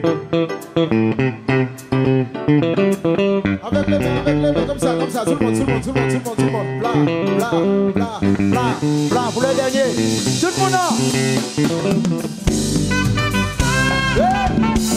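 Live band music: an electric guitar solo over bass guitar and drums, with notes bent up and down in the middle.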